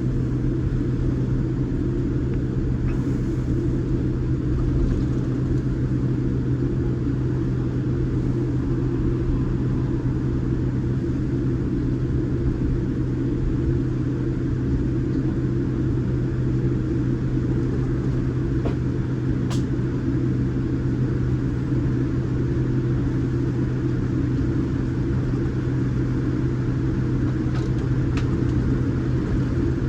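Steady low drone inside the passenger cabin of a Boeing 787 Dreamliner on the ground before takeoff, with a constant deep hum.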